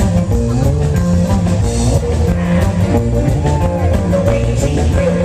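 Live rock and roll band playing an instrumental stretch of the song, with a steady bass line and a regular drum beat.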